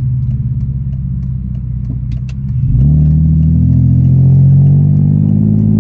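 BMW E46's exhaust through catless headers, a Vibrant resonator and a 4-inch Greddy muffler with a single blast-pipe exit, with some drone at steady cruise between 2,000 and 3,000 RPM. About two and a half seconds in it gets louder and its pitch climbs for a couple of seconds as the car accelerates, then holds.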